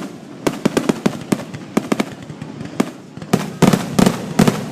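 Aerial firework shells bursting in a rapid, irregular string of bangs, several a second, during a grand finale barrage. The bangs grow louder and denser after about three seconds.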